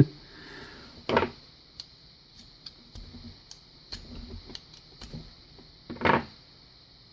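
Light scattered clicks and taps, with two short louder scrapes about a second in and near the end: a dull homemade knife working at paper stuck on a lock key.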